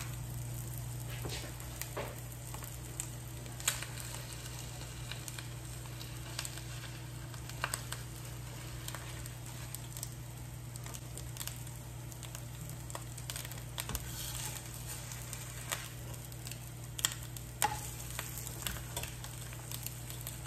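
Eggs sizzling as they fry in a skillet, with scattered light taps and scrapes of a spatula against the pan. A steady low hum runs underneath.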